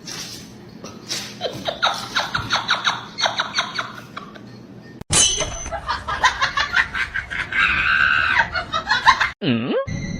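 People laughing in quick repeated bursts, breaking off about halfway and picking up again in a second stretch of laughter. Near the end comes a brief swooping sound that drops and rises in pitch.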